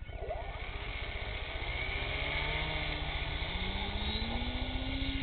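Brushless electric motor and propeller of an RC Super Cub model plane spinning up for the takeoff roll: a whine that climbs in pitch and grows louder as the plane accelerates away.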